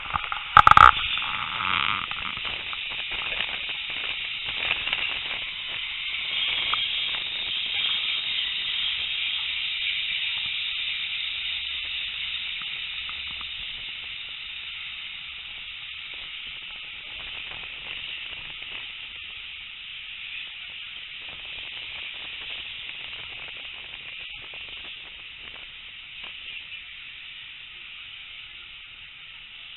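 Steam-hauled passenger train running, heard from an open carriage window: a steady rush of wind and rail noise that builds and then slowly fades through the second half, with a sharp knock about a second in.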